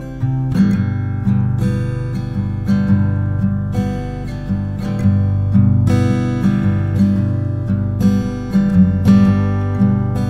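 Background music: a strummed acoustic guitar playing a steady chord pattern.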